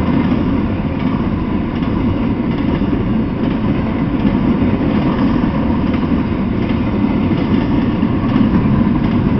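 Freight train of intermodal well cars loaded with shipping containers rolling past: a loud, steady rumble of steel wheels on the rails.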